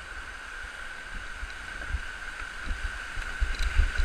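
White water rushing and churning around a kayak, heard close up, with low thumps of buffeting on the microphone that grow stronger near the end. A steady high-pitched tone runs underneath.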